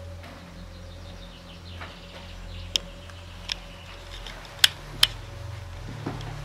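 Footsteps on a gritty, debris-strewn floor, heard as a few sharp, irregular clicks. The loudest two come close together in the second half, over a faint steady hum.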